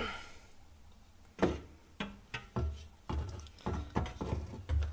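A new radiator being lowered into a car's front end and worked into its mounts by hand: a run of short, uneven knocks and clunks starting about a second and a half in.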